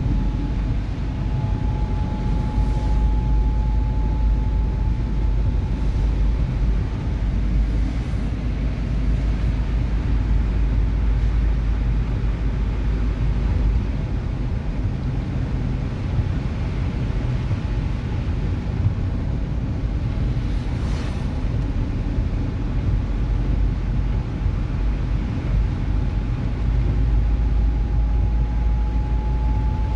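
Steady road noise and engine rumble of a car heard from inside its cabin, driving on a rain-soaked road with the tyres hissing on the wet surface. A faint thin whine sits over it for a few seconds near the start and again near the end.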